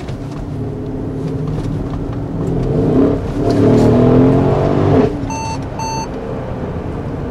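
Mercedes ML63 AMG's 5.5-litre twin-turbo V8 accelerating hard in sport mode, heard inside the cabin: the engine note climbs and gets louder for a couple of seconds, then drops off sharply about five seconds in as the throttle is lifted. Right after that come two short electronic beeps.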